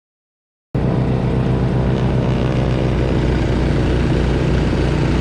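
Honda snowblower engine running steadily under load, cutting in abruptly from dead silence under a second in.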